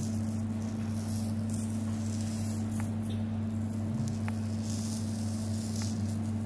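Table salt sprinkled from a salt canister onto paper, a soft hissing patter that swells and fades as it is poured, over a steady low hum.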